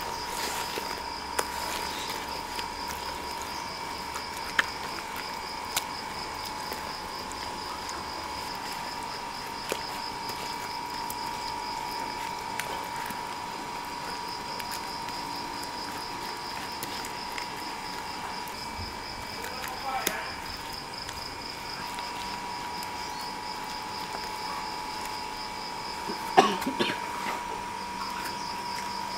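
Wet mud being squeezed and patted by gloved hands, with scattered soft slaps and one louder knock near the end. Behind it runs a steady high-pitched insect trill and a constant lower tone.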